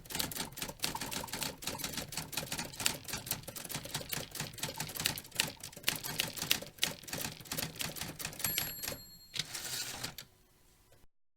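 UNIS Dacty Baby manual typewriter being typed on quickly, its keys striking in a dense, uneven clatter. Near the end the clatter stops, a short high ring sounds, and a brief rasping stroke follows, typical of the end-of-line bell and the carriage return.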